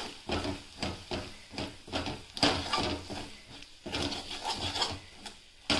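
Metal spatula scraping and stirring ground-spice masala frying in oil in a steel kadhai, in short strokes about two a second, with a light sizzle. The masala is being fried until the oil separates from it.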